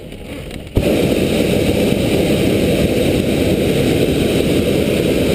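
Hot air balloon's propane burner firing overhead: a loud, steady roar that starts abruptly about a second in.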